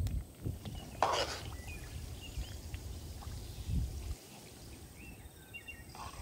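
Wind buffeting the microphone in gusts, easing after about four seconds. A short noisy burst about a second in, and faint short high chirps here and there.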